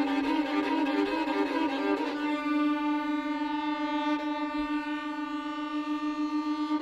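Violin and piano playing a dense, busy passage. About two seconds in, the texture thins to a single long held violin note, sustained steadily.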